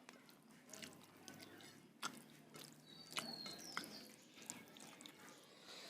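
Faint wet clicks and smacks of eating and chewing, scattered and irregular, with a short high chirp about three seconds in.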